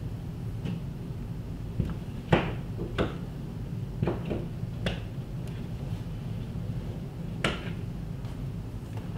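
Scattered knocks and clicks of a power cable being worked out through a wall opening, about half a dozen, the sharpest a little over two seconds in, over a steady low hum.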